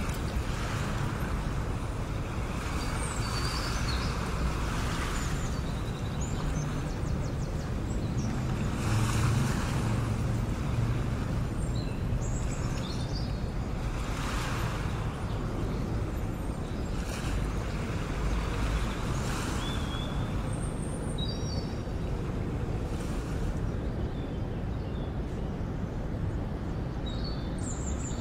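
Seaside ambience: waves washing in about every five seconds over a steady low rumble, with scattered brief high chirps.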